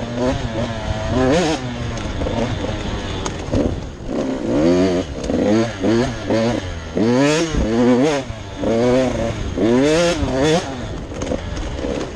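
2023 GasGas 85MX's 85cc two-stroke single-cylinder engine being ridden hard on a dirt trail. It revs up and drops back again and again as the rider works the throttle and gears, its pitch rising and falling several times.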